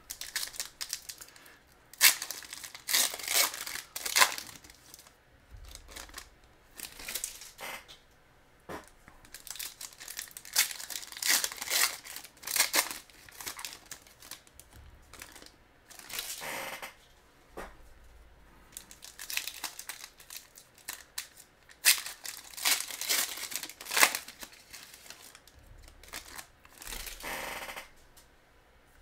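Foil trading-card packs being torn open and crinkled by hand, in irregular bursts of crackling separated by short pauses.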